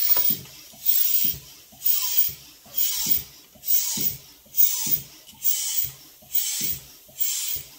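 Hand balloon pump worked in steady strokes, each a breathy hiss of air, about one a second, some with a short squeak falling in pitch.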